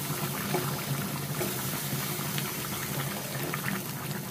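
Bottle gourd and rohu fish curry boiling in a pot, a steady bubbling hiss, with a wooden spatula stirring through it. A steady low hum runs underneath.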